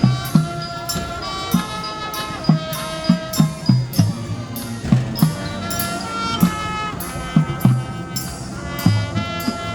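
High school marching band playing: the winds and brass hold and move between sustained notes over a steady beat of bass drum, snare and cymbal hits.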